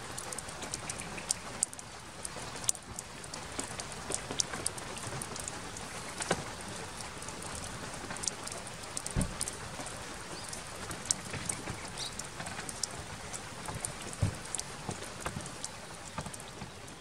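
Steady rain falling, an even hiss dotted with frequent sharp ticks of single drops. Twice, about five seconds apart, a heavier low drop lands with a dull thud.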